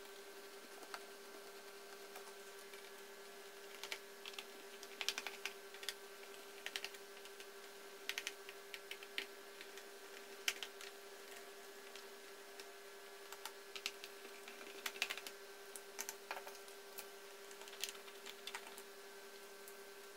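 Small scattered clicks and taps of a screwdriver and tiny screws being worked out of the plastic underside of an HP laptop, coming in short clusters over a faint steady hum.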